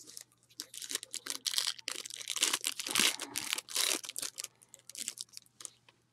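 Plastic trading-card pack wrapper crinkling and tearing in the hands: an irregular run of sharp crackles, loudest in the middle.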